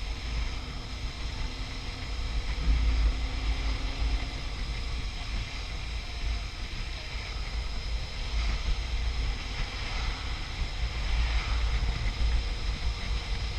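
Wind buffeting the microphone on a moving BMW R1150RT motorcycle in strong wind, over the steady running of its boxer-twin engine and road noise. The buffeting swells about three seconds in and again for a few seconds near the end.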